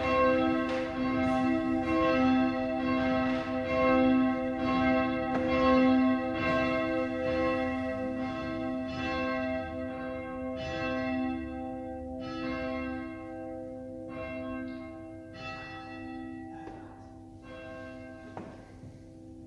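Church bell ringing, a strike roughly every two-thirds of a second, the strikes coming further apart and fainter as the ringing dies away.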